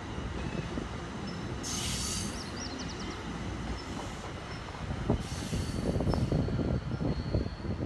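exo commuter train (ALP45-DP locomotive with cab car) rolling past on the rails: a steady low rumble with two brief bursts of high hiss, about two seconds in and again around four to five seconds in.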